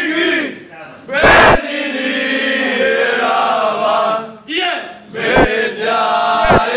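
A group of young men singing a football chant together in long held notes, with a few loud sudden bursts cutting in, about a second in and again near the end.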